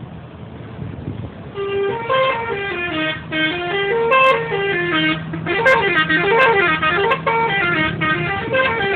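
Bus 'telolet' musical air horn playing a quick melody of short stepped notes that rise and fall, starting about a second and a half in and stopping near the end, with a low steady hum underneath.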